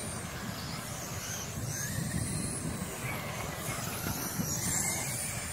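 Radio-controlled sprint cars lapping a dirt oval: a steady rush of noise with faint high-pitched whines that rise and fall as the cars pass.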